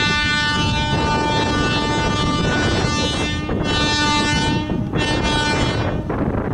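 Electric freight locomotive's horn sounding a long blast, then two shorter ones in the last few seconds, over a steady low rumble from the approaching train.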